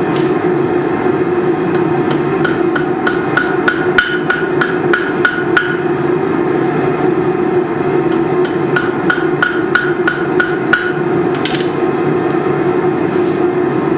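Hammer blows on an anvil while forging steel: two runs of quick, ringing strikes at about four a second, over a steady low roar.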